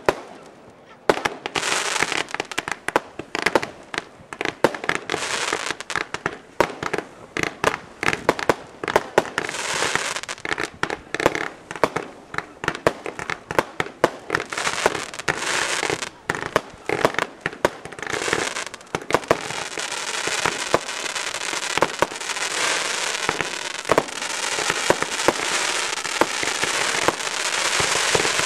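Fireworks display: rapid aerial shell bursts and bangs over dense crackling, building into a denser, nearly continuous barrage in the last third.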